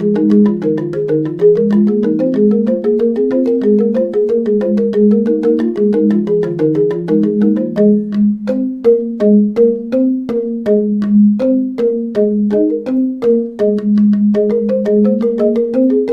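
Instrumental background music: a melody of quick, short struck notes over lower sustained notes.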